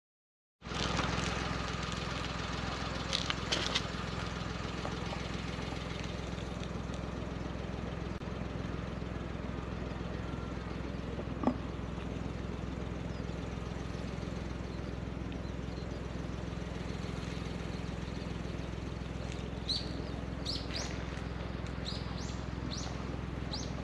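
Steady outdoor background noise with a low hum. A few sharp clicks come about three seconds in, one louder click near the middle, and a run of short high chirps near the end.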